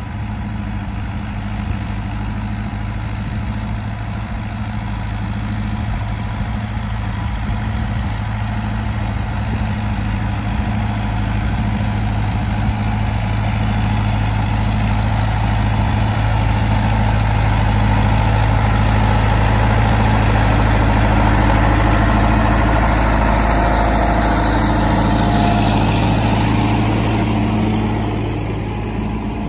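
Fortschritt ZT 323 tractor's four-cylinder diesel engine running steadily under load while ploughing. It grows louder as the tractor comes close, peaks about two-thirds of the way through, and falls away near the end as it passes.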